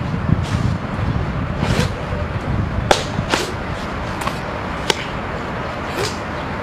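Sharp slaps and swishes from a Bajiquan practitioner's hand strikes and loose white uniform as he works through the form: about half a dozen quick cracks at uneven intervals, over a low steady rumble.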